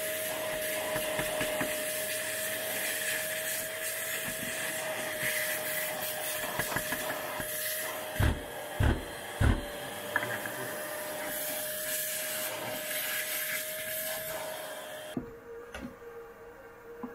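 Shop vacuum running with a steady whine as its crevice nozzle sucks sawdust off a CNC router table, with three dull knocks in quick succession midway. The vacuum sound cuts off suddenly near the end.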